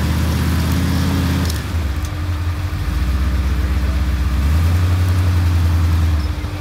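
Ford Bronco's engine working under load as it drives through deep snow, with two surges of throttle: one in the first second and a half, and another from about four and a half seconds in until just before the end.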